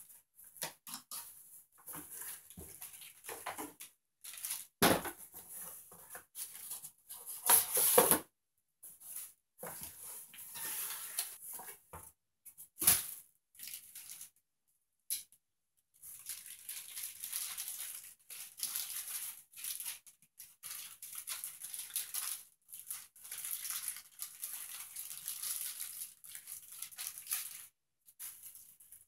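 Handling noise from unpacking a metal detector: cardboard and plastic packing rustling and crinkling as the search coil is unbolted from its cardboard insert and the parts are lifted out, with a few sharp knocks of plastic parts.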